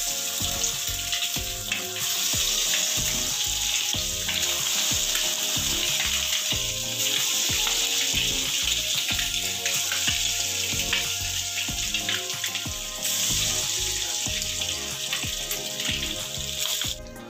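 Egg pakora batter deep-frying in hot oil in a kadhai, giving a loud, steady sizzle that steps up and down in level a few times.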